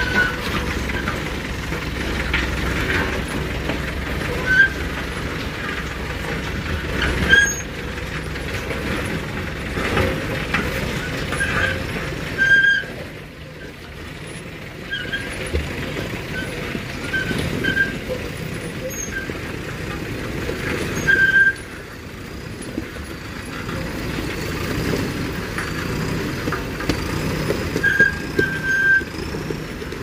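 Diesel engine of a JCB 3DX Super backhoe loader running, with short high-pitched squeals recurring every few seconds.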